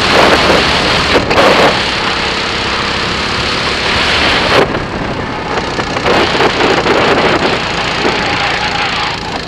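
Rental kart (Birel N35) running at speed on track, its small engine mixed with heavy wind rush on the microphone. The sound drops off sharply about halfway through and builds up again a second or so later.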